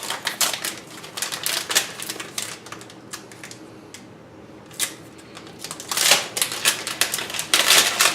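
Small plastic and carbon-fiber parts being handled: a run of irregular clicks and light rustling, with louder rustling bursts about six and eight seconds in.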